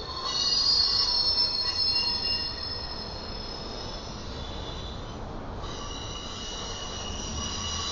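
Double-stack intermodal freight train rolling past with its wheels squealing on the rail: several steady high-pitched tones over a low rumble. The squeal cuts out briefly about five seconds in, then resumes.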